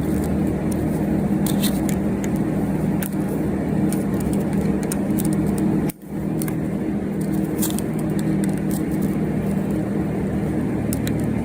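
A steady low mechanical hum, like a running engine or machine, with a few faint light clicks. It cuts out for a moment about six seconds in.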